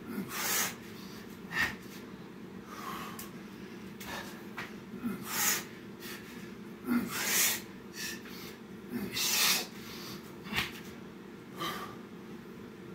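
A man breathing hard through a set of burpees: short, forceful exhalations about once a second or so, over a steady low hum.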